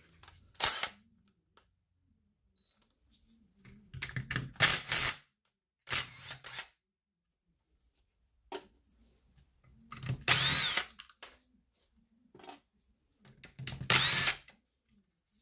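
Cordless driver with a 5/16-inch nut-driver bit run in about five short bursts, each a second or less, spinning the small nuts off an alternator's plastic rear cover. In the later bursts the motor's pitch rises and then falls.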